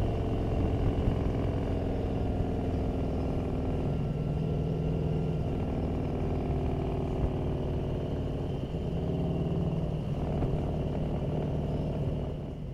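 Motorcycle engine running steadily at cruising speed, heard from the rider's own bike, its level easing slightly near the end.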